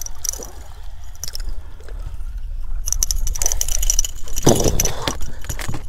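Wind rumbling on the microphone, with water splashing as a hooked speckled trout is reeled to the surface and swung out of the water. The splashing gets louder and busier from about three seconds in.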